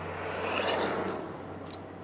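A vehicle passing by: a swell of road noise that rises and fades over about a second, over a low steady hum. A brief high tick comes near the end.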